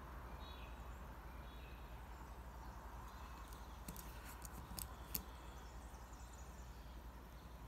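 Faint outdoor background with a few light bird chirps near the start, and a handful of light metallic clicks about four to five seconds in as metal watch bracelets are handled and set down.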